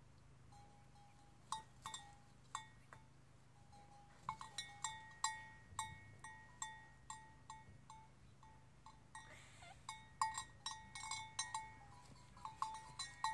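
A bell hanging from a sheep's collar clanking irregularly as the sheep moves and grazes, each strike ringing briefly. A few strikes come about a second and a half in, and they grow frequent from about four seconds on.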